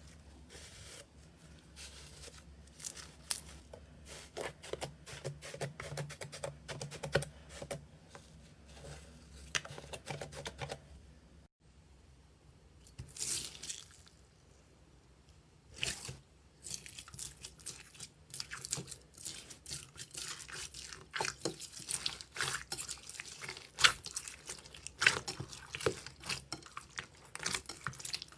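Slime being squeezed and stretched by hand, making a run of small sticky pops and crackles. There is a brief break about twelve seconds in.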